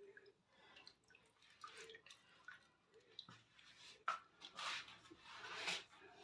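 Faint dripping and soft wet swishes of water as a cat is bathed, with two longer swishes near the end.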